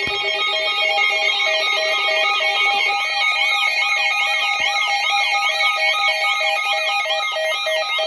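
Several weather-alert receivers sounding their alarms at once: a warbling siren-style tone sweeping quickly up and down over rapid pulsed beeps and steady tones. The alarm marks an incoming severe thunderstorm warning.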